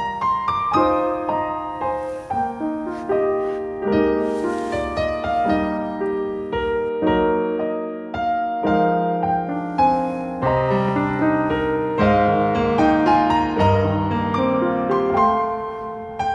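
Background piano music: a gentle melody of struck notes over lower accompanying notes.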